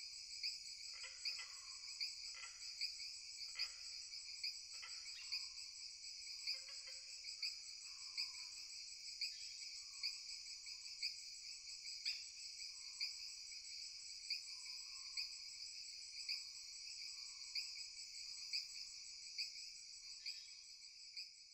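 Faint, steady chirping of crickets, with a few short lower chirps in the first few seconds.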